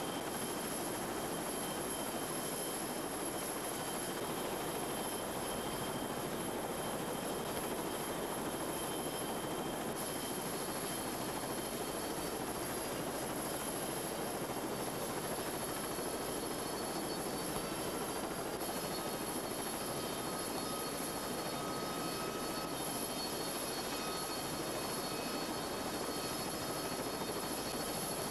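Military helicopter turbine engines running, heard as a steady rushing noise with several high whines. The whines shift in pitch about ten seconds in and again around two-thirds of the way through.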